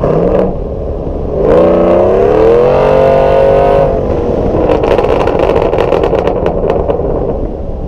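GMC Sierra's engine revving through a Bullet exhaust with Kooks headers and a catless Y-pipe: the revs climb about a second and a half in, hold briefly, then drop back. As they fall, the exhaust pops and crackles, the sign of the rich custom tune.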